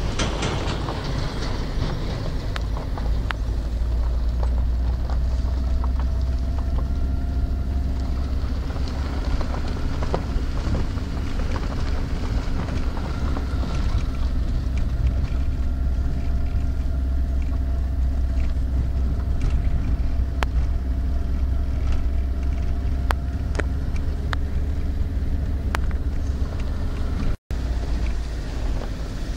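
Car engine running and low road rumble heard from inside a moving car, with a steady hum and scattered light clicks. The sound cuts out briefly near the end.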